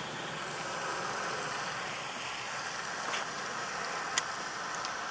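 Steady outdoor background hiss, with a sharp click about four seconds in and a fainter one about a second before it.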